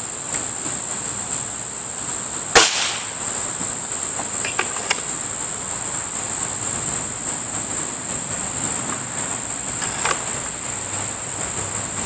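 A Beeman RS2 .22 break-barrel spring-piston air rifle fires a single sharp shot about two and a half seconds in, followed by a few fainter clicks. A steady high-pitched drone of crickets or other insects runs underneath throughout.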